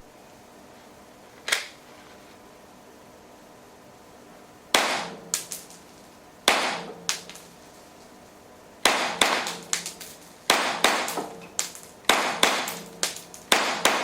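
Tanaka Glock 17 model gun with a silencer barrel firing 9mm double-cap (W-CAP) blank cartridges, each shot a suppressed crack. First come a few single shots a second or more apart, some followed by lighter clicks, then from about the middle a rapid string of about a dozen shots at roughly three a second.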